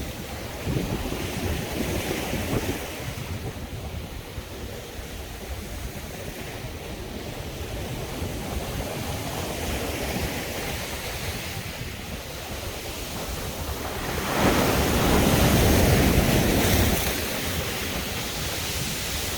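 Sea waves washing onto a beach, with one bigger wave breaking and surging louder for a few seconds about two-thirds of the way through. Some wind rumbles on the microphone.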